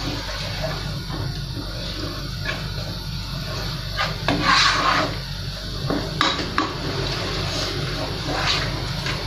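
Metal spoon stirring a thickened cream sauce in a pot, with irregular scrapes and clinks against the pot's side and bottom over a low steady hum.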